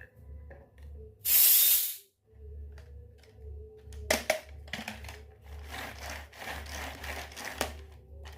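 A short, loud hiss about a second in, then clicks and scratchy rustling of small objects being handled, over soft background music with a steady low beat.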